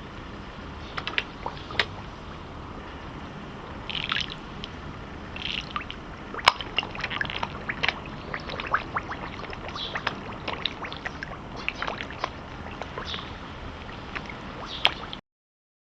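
Carp feeding at the water surface: many quick wet smacks and gulps as they suck in floating food, coming thicker from about six seconds in. The sound cuts off abruptly near the end.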